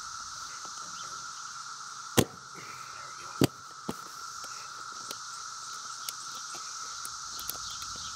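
Two sharp metallic clacks about a second apart, then a few lighter clicks, as a ratchet strap's ratchet buckle is worked open to release the strap from around a small tire that has just been seated on its rim. A steady high insect hum runs underneath.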